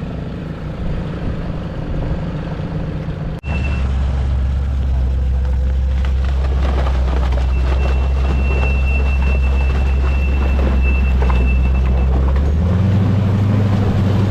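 Off-road 4x4 engine running under load, a loud steady low drone that steps up in pitch as it revs near the end, with a thin high whine over it in the middle.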